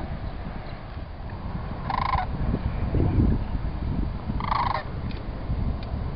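Sandhill cranes giving two short rattling calls, about two and a half seconds apart, over a low rumbling noise.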